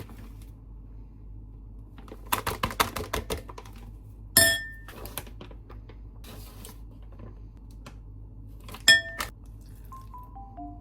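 Kitchenware being handled: a quick run of sharp clicks, then two ringing clinks of kitchenware struck together, about four and a half seconds apart.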